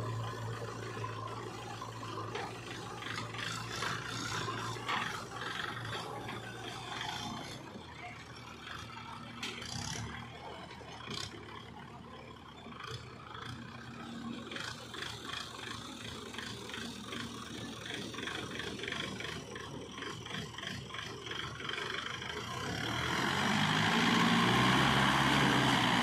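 Diesel engines of a JCB 3DX backhoe loader and a Mahindra 475 DI tractor running, with scattered knocks and clatter. Near the end the tractor engine revs up and grows loud as it pulls the loaded soil trolley away.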